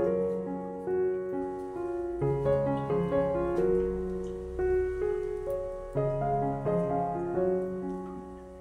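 Background piano music: a gentle melody of single notes over sustained low chords, fading near the end.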